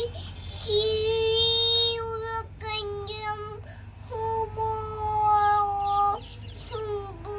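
A two-year-old girl's high voice chanting aloud in a sing-song while pretend-reading a picture book, drawing out two long held notes, the first about a second in and the second around the middle.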